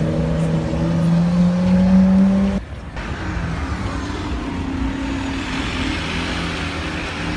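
A Lamborghini supercar's engine pulling away, a loud steady note that climbs slightly in pitch, then cuts off abruptly. It is followed by a Porsche 918 Spyder moving off slowly, a quieter engine note over street noise.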